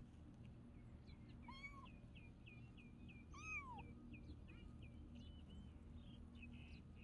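Two faint kitten meows: a short call about one and a half seconds in, and a longer one about three and a half seconds in that falls away at the end.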